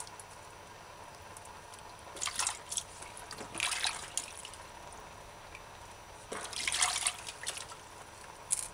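Water splashing and dripping in a stainless steel bowl as cauliflower florets are rinsed by hand and lifted out, in several short bursts.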